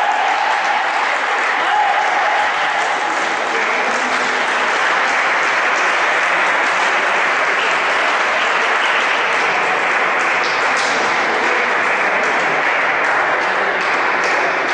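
Sustained applause and clapping from a crowd of spectators.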